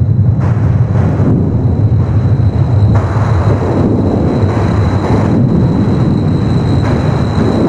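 Seismometer recording of the magnitude 7.2 Mozambique earthquake of 2006, converted to audio: a loud, continuous deep rumble with a rushing noise that swells about three seconds in, and a faint steady high tone above it.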